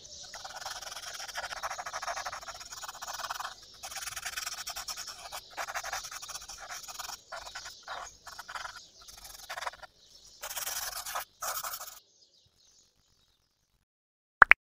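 Cotton swab rubbing over graphite pencil shading on paper in short scratchy strokes, over a steady background of birds chirping. Both stop about twelve seconds in, and a short, loud double blip comes near the end.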